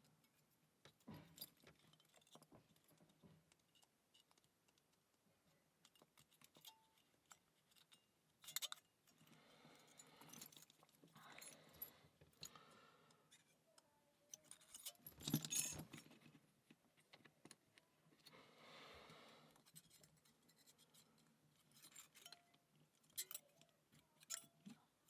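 Faint, scattered metallic clicks and clinks of thin shims and small tools being worked into a cross lock cylinder, with the loudest cluster about fifteen seconds in and soft rustling between.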